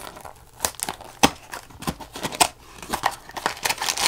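Small cardboard box handled and torn open by hand: a string of sharp taps and scrapes, with tearing and crinkling of the packaging growing denser near the end.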